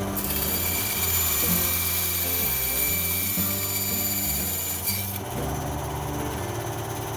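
Benchtop band saw cutting through a sheet of bracket stock, a steady hissing rasp with a high whine that stops sharply about five seconds in as the cut ends. Background music plays underneath.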